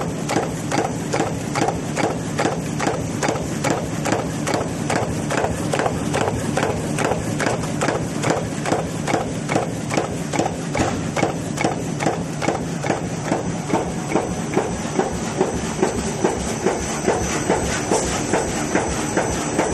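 Paper cup forming machine running at a steady pace: an even rhythm of mechanical clacks, about two a second, over a continuous machine hum.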